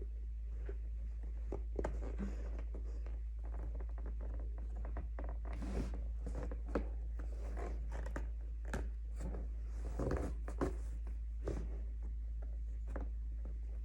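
Irregular soft clicks, scrapes and rustles of hand-stitching a torn luggage bag, with needle, thread and the bag's fabric being handled. A steady low hum sits underneath.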